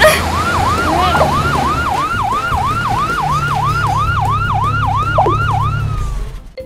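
Ambulance siren sound effect in a fast yelp, rising and falling about three times a second over a low vehicle rumble. It begins abruptly, and near the end it slides down in pitch and stops.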